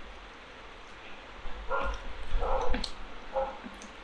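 An unseen animal whining in three short, high calls, the first nearly two seconds in and the others about half a second and a second after it.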